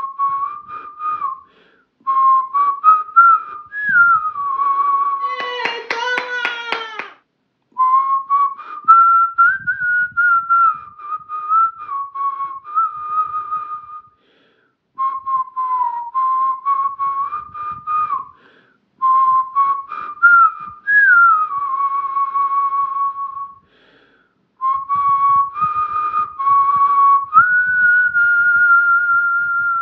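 A melody whistled in short phrases of two to three seconds with brief pauses, the pitch sliding smoothly between notes. Between about five and seven seconds in, a fuller tone with many overtones cuts in briefly.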